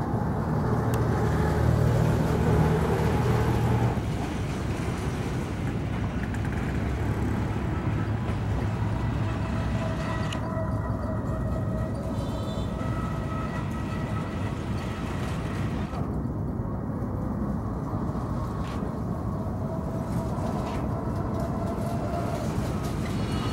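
Steady low drone of a river cargo barge's engine as the barge passes, loudest in the first few seconds, over a constant noisy outdoor background.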